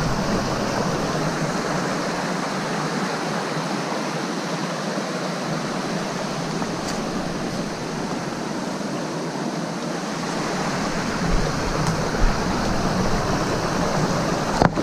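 Shallow rocky mountain creek running over stones and small riffles: a steady rush of water, with a few light knocks near the end.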